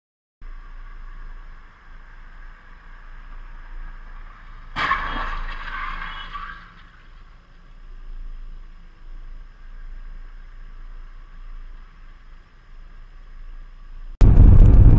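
A sudden loud crash about five seconds in, ringing and scraping on for about two seconds, over a faint low rumble of distant traffic. Loud steady engine and road noise starts near the end.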